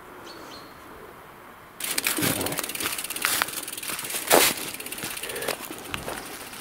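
Footsteps crunching through dry fallen leaves, an irregular crunch with each step. It starts suddenly about two seconds in and is loudest about four seconds in.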